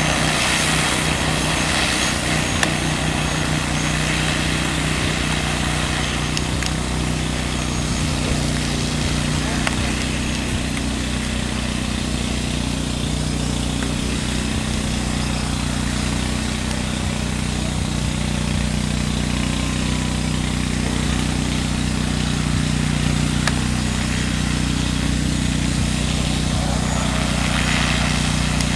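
Six-rotor agricultural spraying drone with a 20-litre tank flying low while spraying, its rotors making a steady hum of several low tones.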